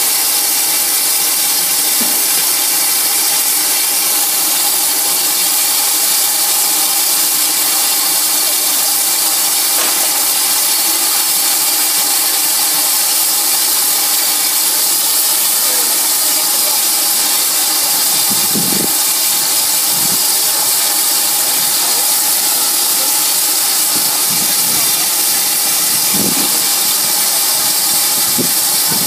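GWR 5619 steam tank locomotive standing and hissing steam steadily. A few short, dull thuds come in the second half.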